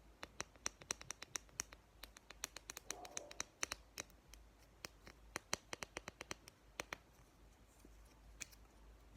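Fingernails tapping in quick, sharp clicks, several a second in uneven runs, stopping about seven seconds in with one last tap near the end.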